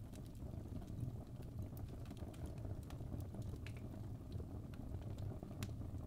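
Fire crackling: sharp snaps and pops, about two a second, over a steady low rumble of burning flames.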